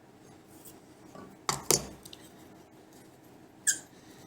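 Sharp metallic clinks from a screwdriver and hand plane parts being worked while a screw is loosened: two close together about a second and a half in, and another near the end.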